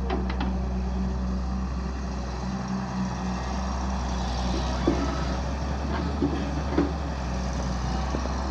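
Heavy machinery diesel engine running steadily with a deep drone, with a few short knocks about five, six and seven seconds in.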